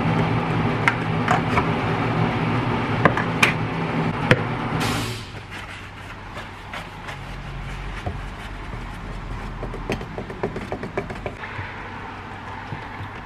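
Clicks and taps of paint mixing at a workbench: a tool working at a metal paint tin's lid and a stick stirring paint in a plastic mixing cup. A steady droning hum runs under the first five seconds and stops, with a short hiss just before it ends, and small taps and clicks go on after.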